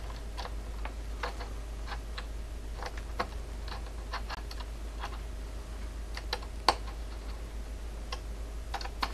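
Small irregular clicks and ticks of a hex key turning the screws of a Creality Ender 3 belt tensioner, starting them into their T-nuts, with one sharper click about two-thirds of the way through.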